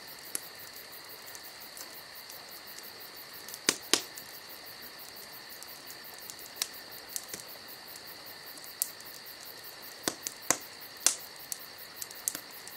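Night insects chirping in a steady, continuous high chorus. Sharp clicks are scattered through it: the loudest are a pair about four seconds in and a cluster a little before the end.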